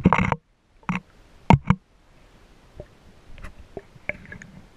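Underwater noise heard through a camera's waterproof housing: a brief loud rush of water at the start, then a few sharp knocks about a second in and again around a second and a half, followed by faint scattered clicks.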